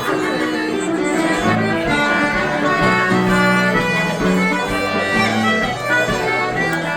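Traditional Irish instrumental music playing steadily, with a melody of held notes over accompaniment.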